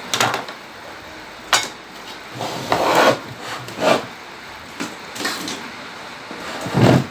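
Handling noise: a string of short rubbing and scraping sounds with a sharp click about a second and a half in, as things are moved about close to the microphone.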